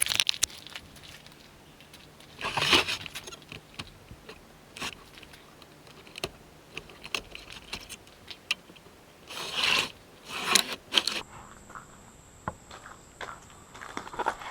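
Handling noise as a stack of 2x4 boards is taken apart: scattered knocks and clicks, with louder scraping and rattling about two and a half seconds in and again around ten seconds.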